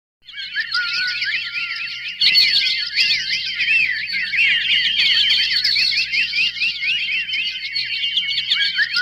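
Sound effect of dense, overlapping chirps and trills, many at once, growing busier and louder about two seconds in.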